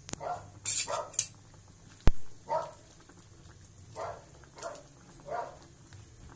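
A dog barking in short yaps, about six times. About two seconds in, a metal ladle knocks sharply against the aluminium cooking pot, the loudest sound.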